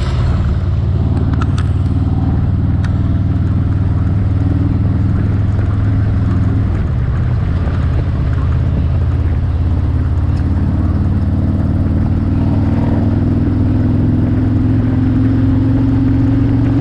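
Motorcycle engine running steadily while riding, with its note creeping up slightly in pitch over the last few seconds.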